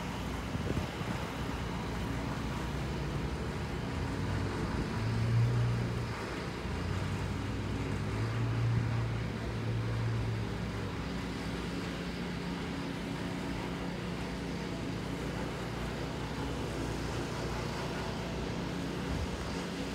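Steady low hum of road traffic, with a deeper engine drone swelling louder twice in the middle.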